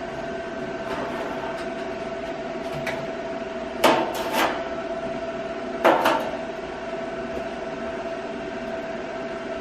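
Metal hold-down blocks clanking as they are set down on sheet steel: two sharp clanks about four seconds in and a quick double clank about six seconds in, over a steady hum.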